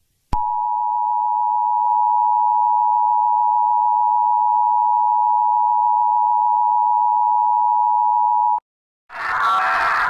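Emergency alert attention tone: after a click, a steady two-note tone like the EAS attention signal holds for about eight seconds, then cuts off suddenly. Near the end a different, noisier alarm with pulsing tones begins.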